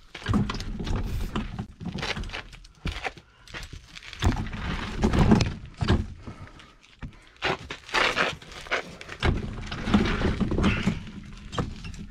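A person crawling on hands and knees across a dirt crawlspace floor: irregular scraping, shuffling and thuds of knees, hands and clothing on dirt and debris.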